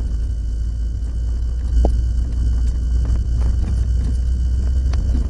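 Subaru Impreza WRX Group N's turbocharged flat-four engine and running gear, heard from inside the cabin as a steady low rumble under way, with a brief knock about two seconds in.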